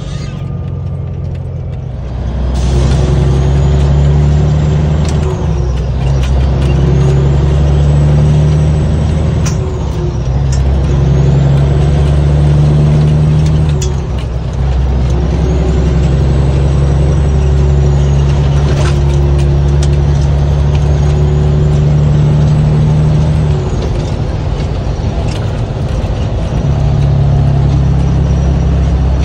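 Caterpillar 3406B mechanical diesel in a semi truck, heard from inside the cab, pulling through the gears under throttle. Its Borg Warner 174259 turbo whistles loudly, the high whistle climbing, holding and falling back about five times as the engine note dips at each shift and builds again.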